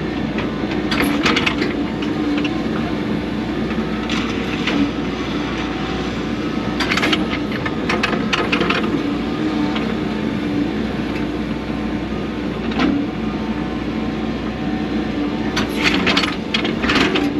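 Excavator engine and hydraulics running steadily, heard from inside the operator's cab, with repeated short bursts of scraping and cracking as the bucket digs through dirt and stones, several times, with a cluster near the end.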